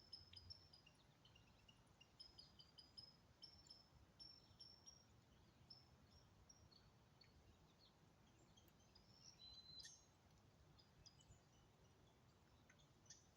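Near silence with faint, quick high-pitched chirps from small wildlife, coming in a steady run for the first few seconds and more scattered after. There is a brief click about ten seconds in.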